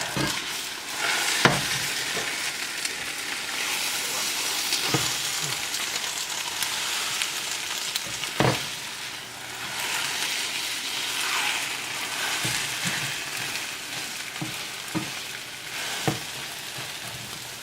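Egg-white omelet sizzling steadily in a hot frying pan, with a few sharp knocks of a utensil against the pan during a flip attempt: two louder ones about a second and a half in and about eight seconds in, and smaller ones near the end.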